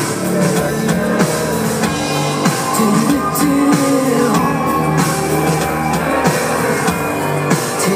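Live rock band playing: distorted electric guitar and drum kit, with a female lead vocal over them, through a large concert sound system.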